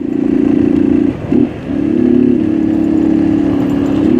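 Small motorcycle engine running steadily under way on a dirt road, with a brief wobble in pitch about a second in.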